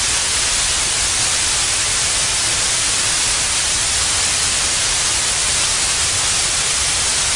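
Loud, steady television static hiss, an even white noise without change.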